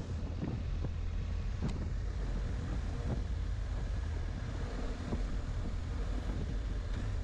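Motorcycle riding along: steady engine and road rumble under wind buffeting the microphone.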